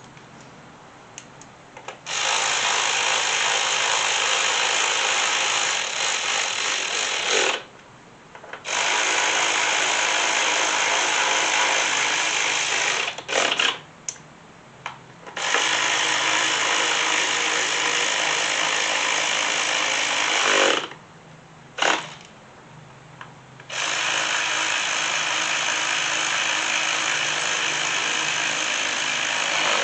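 Cordless power tool running in four long runs of about four to five seconds each, with short blips between, driving in the coil pack hold-down bolts.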